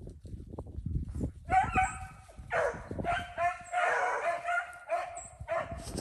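Beagles baying in a run of long, drawn-out howling notes starting about a second and a half in: hounds giving tongue on a rabbit's track.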